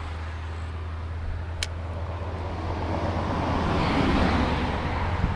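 Road traffic: a steady low rumble with a car passing, growing louder to a peak about four seconds in and then fading. A single sharp click about one and a half seconds in.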